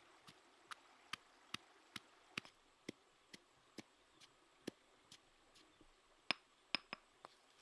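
Pestle pounding chilies and garlic in a stone mortar: sharp, regular knocks about two a second, with two louder strikes near the end.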